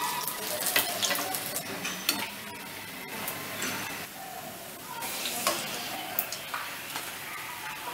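Oil sizzling as battered, shrimp-stuffed pumpkin blossom fritters deep-fry in a kadai, with scattered clicks and scrapes of a perforated metal skimmer lifting the fritters out of the oil and setting them on a plate.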